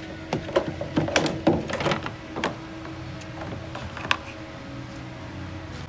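Plastic windscreen cowl panel being pulled off, its clips popping and the panel knocking in a quick run of clicks and knocks over the first two and a half seconds, then one more knock about four seconds in. A faint steady hum runs underneath.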